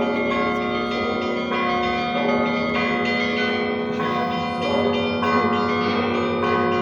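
Russian Orthodox church bells ringing from a bell tower, many bells of different pitches struck in a continuous, overlapping peal. The visitor suspects it is a recording played from the tower, since the bells are not seen to move.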